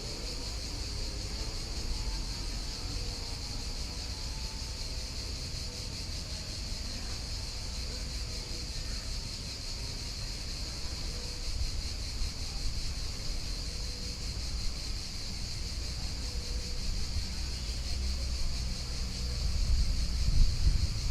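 Steady, high insect chirring over a low, constant rumble, with the rumble growing a little louder near the end.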